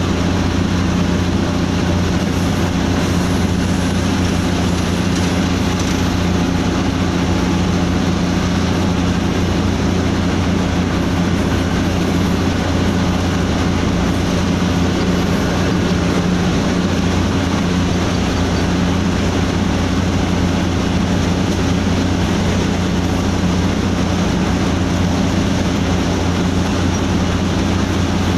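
Diesel locomotive running steadily along the line, heard inside the cab with the side window open: a constant low engine drone mixed with train running noise.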